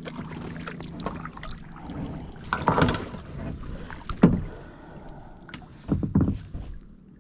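Kayak handling noises: irregular knocks and clatter of gear and hands against a plastic kayak hull, with water movement, and one sharp loud knock a little past the middle.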